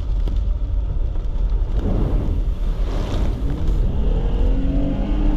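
Jeep Gladiator's V6 engine and drivetrain running under load, a heavy low rumble heard from inside the cab, with a rushing swell about two to three seconds in and the engine pitch rising toward the end as it picks up speed.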